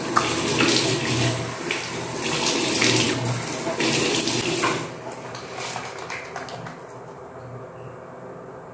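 Tap water splashed onto the face by hand at a sink, a run of uneven splashes; after about five seconds the splashing stops and a quieter steady water sound goes on.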